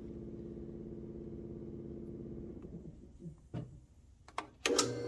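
Drill press motor humming, then winding down about three seconds in. A few sharp clicks of metal parts being handled follow, and near the end the drill press switches on again with a sudden steady hum, ready to drill out a nut.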